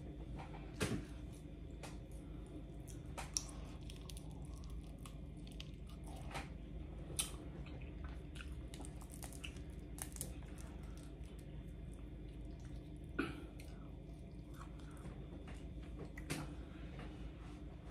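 Boiled crawfish being peeled and eaten close to the microphone: scattered wet cracks and squishes of shell, with chewing.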